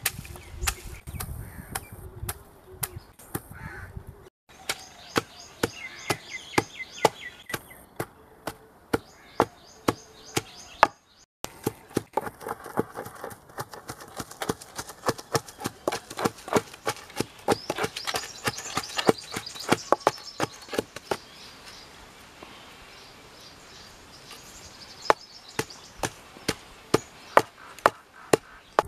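Wooden pestle pounding ingredients in a stone mortar: a long run of sharp knocks, two or three a second, broken twice by short pauses.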